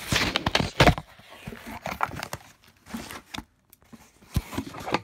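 Cardboard shipping box being opened and handled: a string of quick, irregular rustles and scrapes with a few sharp knocks, the loudest about a second in and another near the end.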